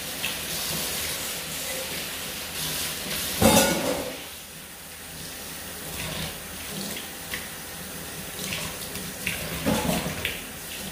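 Tap water running into a sink while a freshly scaled milkfish is rinsed, with small knocks of handling. A brief louder burst comes about three and a half seconds in, and another near the end.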